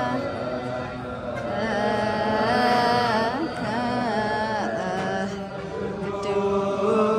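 Ethiopian Orthodox liturgical chant: voices hold long notes and move through slow melodic turns, without instruments or beat.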